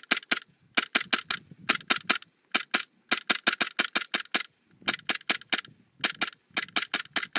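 WE G18c gas blowback airsoft pistol firing on semi-automatic: sharp shots in quick strings of several, about five a second, with short pauses between the strings.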